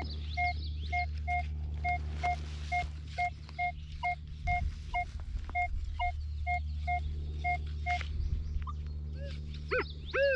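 Minelab Equinox 800 metal detector beeping on a buried target: short, identical mid-pitched beeps, two or three a second, stopping about eight seconds in. A steady low hum and bird chirps run underneath.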